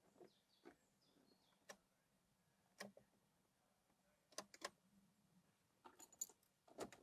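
Faint, sparse clicks and light taps of small parts and tools being handled. There are a few quiet chirps near the start, two sharp clicks close together in the middle and a quick cluster near the end, with near silence between.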